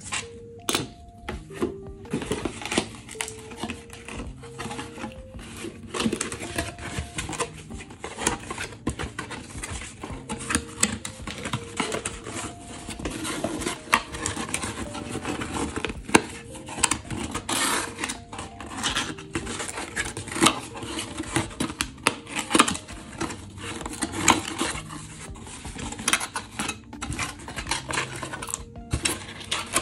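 Corrugated cardboard mailer boxes handled and folded by hand: a steady stream of cardboard scraping, rustling and light taps.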